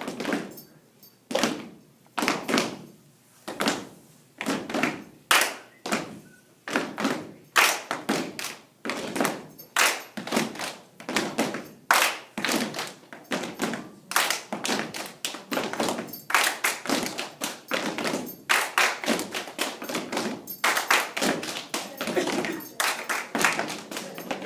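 A group of children performing a body-percussion routine together: rhythmic hand claps mixed with thumps, in a steady pattern that grows busier from about a third of the way in.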